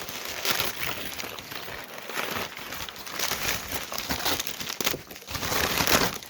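Packaging crinkling and rustling as hands dig through a parts box, in uneven bursts with the loudest near the end.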